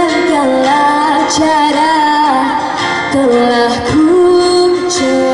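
A female vocalist singing a slow song in long held notes into a microphone, accompanying herself on acoustic guitar, amplified through a stage PA.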